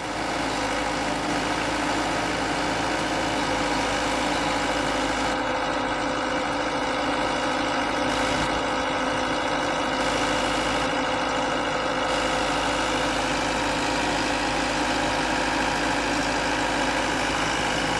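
Bucket truck's engine idling steadily, an even, unchanging hum.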